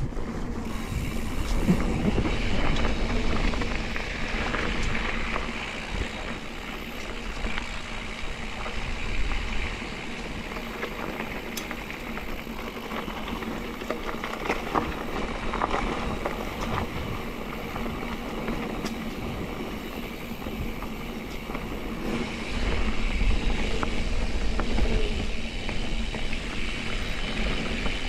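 Mountain bike rolling down a dirt singletrack: tyres running over packed dirt and leaf litter, with occasional clicks, and wind rumbling on the camera microphone. The rumble is heavier in the first several seconds and again in the last several.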